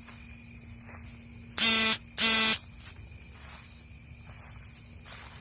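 Two loud, steady buzzing tones of the same low pitch, each about a third of a second long and half a second apart, about a second and a half in. Faint insect chirping, typical of crickets, runs underneath.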